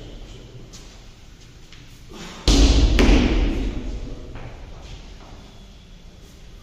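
Medicine ball thrown hard against a wall: two heavy thuds about half a second apart, about two and a half seconds in, echoing as they fade.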